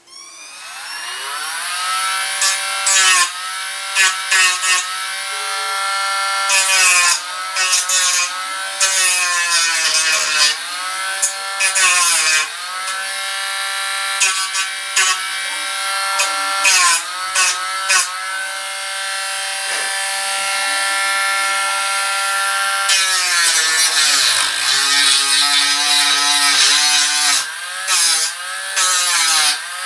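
Dremel Stylus rotary tool with a sanding wheel spinning up to a high whine, then sanding built-up putty. Its pitch sags again and again as it is pressed into the work and climbs back as it lifts off, with scratchy grinding at each contact.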